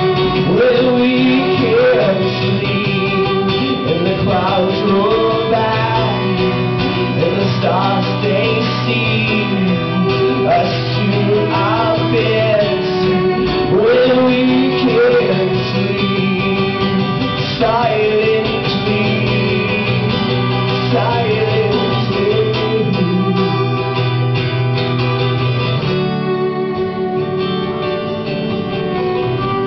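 Fiddle and strummed acoustic guitar playing a country-style song, with a man's voice singing over them.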